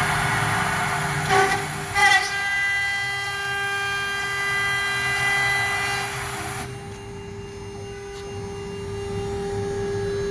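CNC lock-milling machine's spindle cutter milling a thermal-break aluminium profile: a loud, high-pitched screech with several steady whistling tones, which stops about six and a half seconds in, leaving the spindle running with a steady hum.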